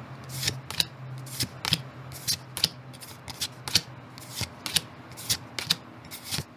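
Pokémon trading cards being flicked through one by one from a freshly opened booster pack, each card slid off the front of the stack with a short crisp swish, about two or three a second.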